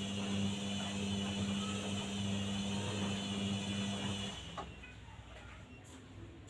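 Washing machine running its spin cycle, a steady motor hum with a high whine, which stops about four seconds in.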